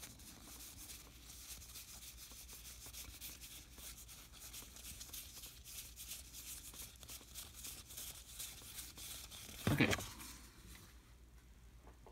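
Stiff cardboard trading cards being thumbed through quickly in the hands, a dense run of soft flicks and card-on-card rubbing. A single louder thump comes just before the end, after which the handling stops.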